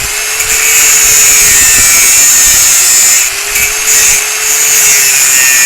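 A grinder grinding steel at full speed, cutting a windshield hinge free from a rusted windshield frame. The sound is loud and steady, with a high-pitched whine, and it briefly drops away twice, about three and four seconds in, as the disc bites and eases.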